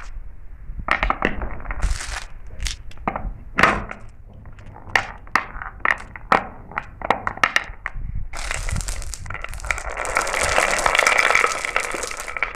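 Glass marbles clacking and rolling down a marble run: scattered sharp clicks as they hit the track and each other, then about eight seconds in a dense, continuous rattle of many marbles rolling together.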